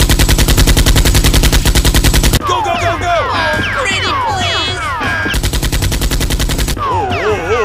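Rapid automatic-gunfire sound effect in two long bursts, the first over two seconds and the second over a second. Between and after the bursts come many falling whistle-like tones.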